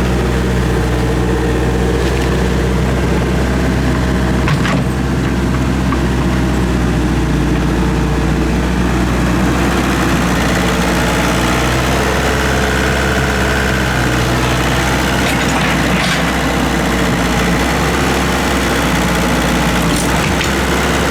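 Excavator's diesel engine running steadily, with a few sharp knocks: one about four and a half seconds in and two more later on.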